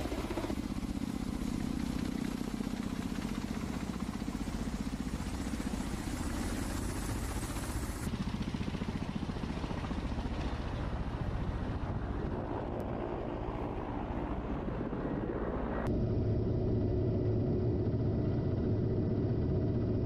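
Ka-52 attack helicopter's coaxial rotors and twin turbine engines running as it flies by low, a steady drone with fast rotor chop. The sound changes abruptly about 8 and 16 seconds in; the last part is a louder, lower, steadier helicopter drone heard from on board.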